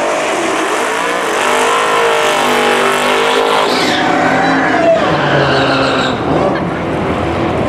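Muscle cars doing burnouts at the drag strip start line, among them a Dodge Challenger SRT Demon with its supercharged V8. The engines rev hard and the pitch climbs and drops while the spinning rear tyres squeal.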